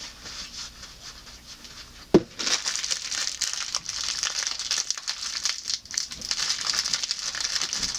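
Clear plastic fortune-cookie wrapper crinkling as hands twist and pull at it, trying to tear it open. A single sharp snap about two seconds in, then constant crinkling.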